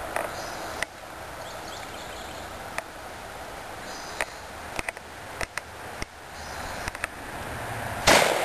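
A single loud shotgun blast from a 20-gauge Remington 870 pump-action near the end, preceded by a few scattered small clicks and knocks of gun handling over steady background noise.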